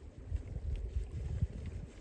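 A gust of wind buffeting the microphone: an uneven low rumble lasting about a second and a half.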